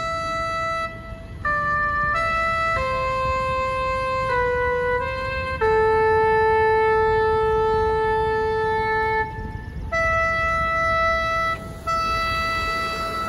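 A slow melody on a solo brass instrument, the lament played during a moment of silence for fallen soldiers. Long held notes step downward, one is held for about four seconds in the middle, and there are short breaks between phrases.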